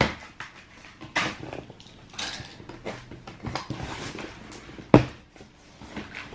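Shoe boxes and packaging being handled: a string of rustles and knocks, with one sharp knock about five seconds in.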